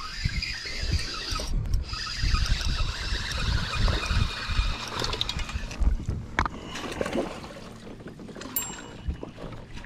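Water splashing and lapping as a hooked smallmouth bass thrashes at the surface beside a kayak, with wind rumbling on the microphone.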